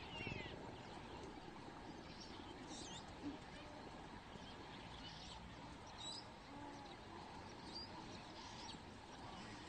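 Faint open-air savanna ambience with a few short, high chirping calls a few seconds apart.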